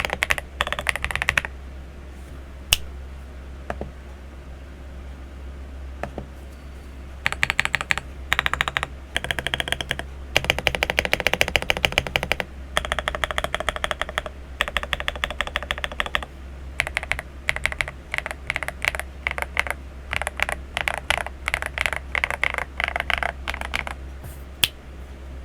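Typing on an RK M75 mechanical keyboard with AKKO Cream Yellow Pro linear switches and SAL Ocean Star keycaps: runs of fast keystrokes in bursts, with a few seconds early on of only scattered single key presses before steady typing resumes.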